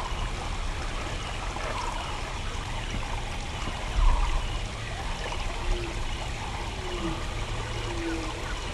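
Steady rush of running water from a woodland stream. A low thump about four seconds in stands out above it, and a few faint short notes repeat about once a second near the end.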